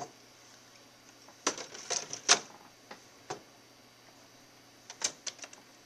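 Plastic toner cartridges being slid into the slots of an HP Color LaserJet 3600n printer, making sharp plastic clicks and clacks. There is a cluster of clicks about a second and a half in, a single click a little past three seconds, and another cluster near the end.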